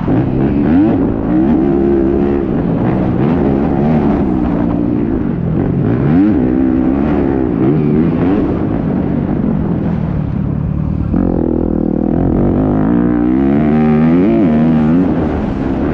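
Yamaha YZ250F four-stroke single-cylinder motocross engine, heard from the rider's helmet, revving up and dropping back again and again as the bike accelerates, shifts and slows around a dirt track.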